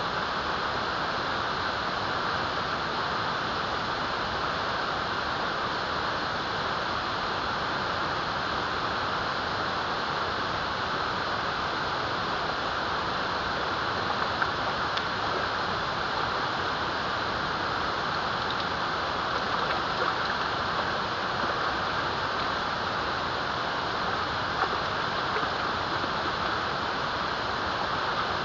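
Running water, a steady even rush like a stream or inflow, with a couple of faint ticks.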